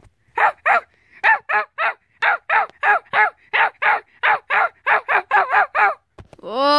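A rapid run of high-pitched yapping barks, about three a second and quickening slightly, standing for the annoying bark of the puppy character. Near the end the barks give way to a longer rising whine or groan.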